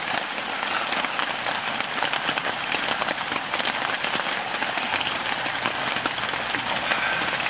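Rain pattering steadily on a tent's fabric, heard from inside the tent as a dense, even patter of drops.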